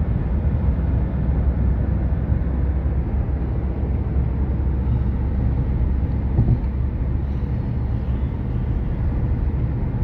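Steady low rumble of road and engine noise heard from inside the cabin of a moving car.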